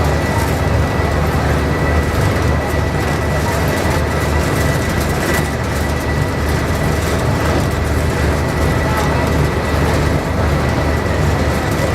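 Harbour ferry's engine running steadily: a loud, even low drone with a faint steady high whine over it.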